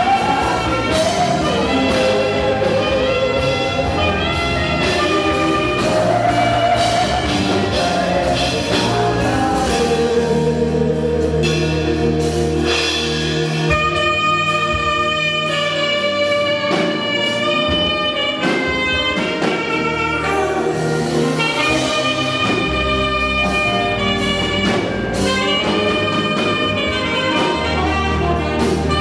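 Saxophone playing an energetic African praise melody in long held notes over a live band, with bass and drum kit keeping the beat.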